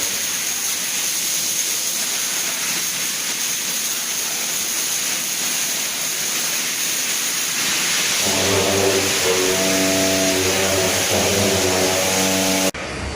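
MIG/MAG welding arc from a welding robot, a steady loud crackling hiss. A steady buzzing hum joins it about eight seconds in, and the sound cuts off abruptly near the end.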